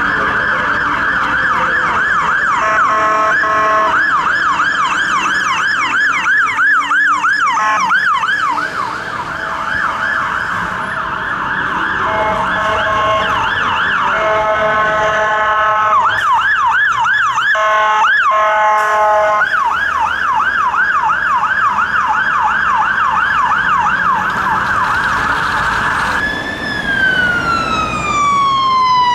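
UK fire engine sirens responding: a rapid rise-and-fall wail, at times two sirens overlapping, switching in places to a steady two-tone. Near the end it changes to another fire engine's siren, a slow wail sweeping down and then starting to rise again.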